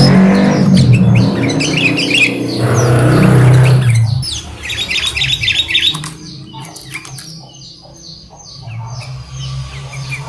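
Caged sooty-headed bulbuls (kutilang) giving quick, repeated chirps and squawks of short falling notes. A loud low rumble sits under them for the first four seconds and then fades away.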